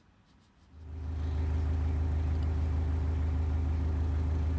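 Narrowboat engine idling with a steady deep hum, starting about a second in after a moment of near silence.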